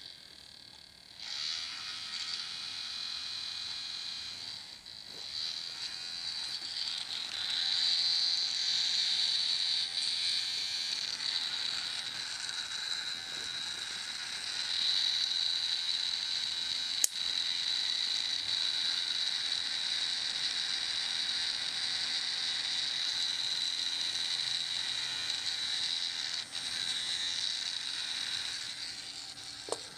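Small electric fan motor of a mini air conditioner running with a steady, rattly whir. It gets louder in steps, about a second and a half in, again around eight seconds and again around fifteen seconds, as if the speed is turned up. There is a single sharp click about seventeen seconds in.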